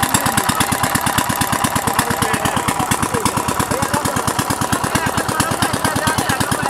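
A small engine running steadily with a regular chugging beat, about eight beats a second.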